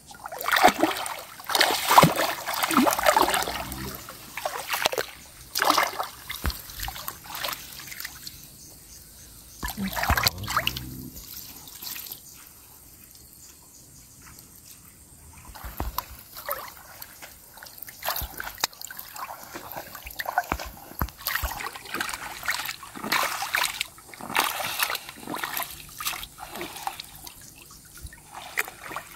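Shallow marsh water splashing and sloshing in irregular bursts as hands lower and press a collapsible umbrella-style mesh fish trap into it. The splashing eases off for a few seconds midway, then picks up again.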